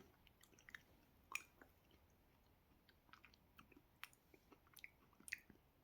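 Faint mouth sounds of a man eating a cherry yogurt: scattered small clicks of lips and tongue as he chews and tastes.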